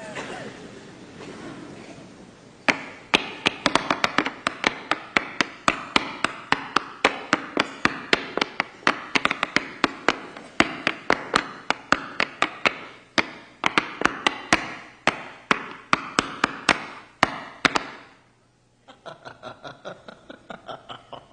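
Tap shoes clattering on a stage floor in a fast, irregular run of sharp taps. The taps stop briefly about eighteen seconds in, then resume more lightly.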